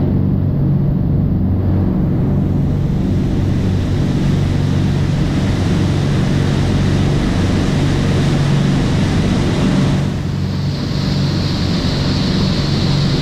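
Twin engines of a Sea Ray 400 Sundancer cruising at speed, a steady low drone over the rush of the wake. A higher hiss joins about ten seconds in.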